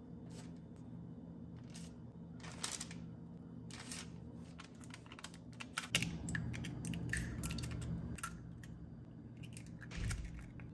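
Small kitchen handling sounds: parchment paper rustling and soft taps, then eggs cracked into a ceramic bowl, with a sharp crack about six seconds in followed by light clicks, and another crack near the end.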